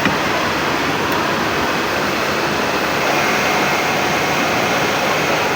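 Steady, loud machine din from the sock sewing machinery running, an even rushing noise with a faint steady whine over it.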